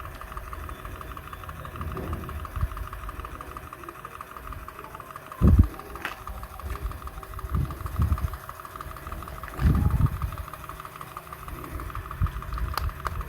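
A small motor running steadily with a fast-pulsing hum, broken by several dull thumps, the loudest about five seconds in.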